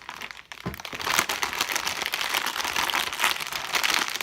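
A plastic snack bag being handled, crinkling and rustling almost continuously.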